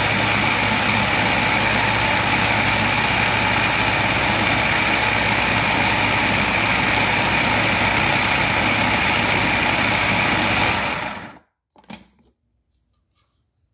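Food processor motor running steadily at full speed, churning a thick peanut-butter and cocoa paste, then switched off about eleven seconds in and winding down quickly.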